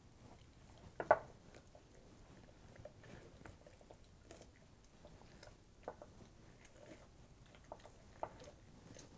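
Raw chicken skin being pulled off the carcass by hand: soft, wet, sticky clicks and squelches, with one much louder wet snap about a second in.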